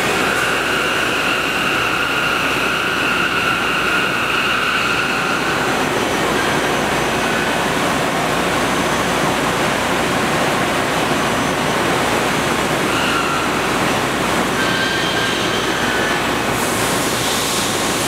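Steady, loud rushing mechanical noise with a faint high whine that fades out about five seconds in and comes back briefly later.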